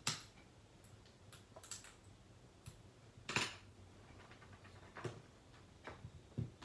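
Metal clicks and clinks of test leads and clips being handled on the terminals of a dual run capacitor, a handful of sharp taps with the loudest about three and a half seconds in.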